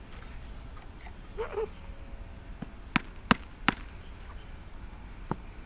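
Ceiling fan blade being bent and snapped by hand: three sharp cracks in quick succession a few seconds in, then one more near the end.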